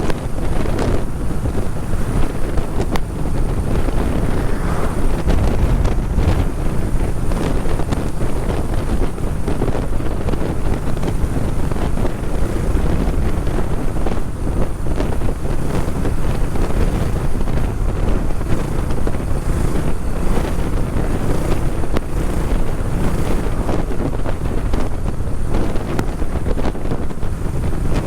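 Heavy wind buffeting on the microphone of a rider moving at speed: a loud, steady, fluttering rumble, deepest at the low end, that drowns out everything else.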